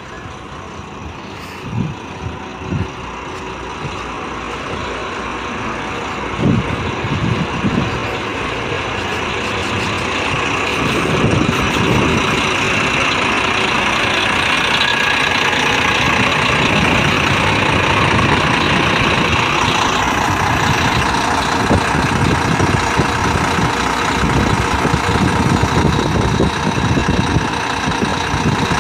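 A Volvo 9400 coach's rear-mounted diesel engine idling steadily, growing louder as it is approached from the front, with a few short dull thumps in the first several seconds.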